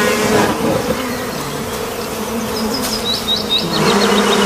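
Honeybees buzzing around an opened hive: a dense, steady hum of many wings at several pitches.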